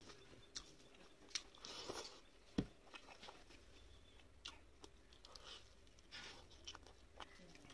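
Close-miked eating sounds: fingers squishing and mixing rice and curry on a steel plate, with wet mouth clicks and chewing as food goes in. The sounds are scattered sharp clicks and short squelches; the loudest, a sharp knock, comes about two and a half seconds in.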